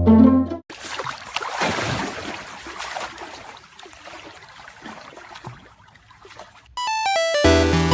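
Water sloshing and splashing, loudest about a second in and fading away over the next few seconds, between stretches of background music.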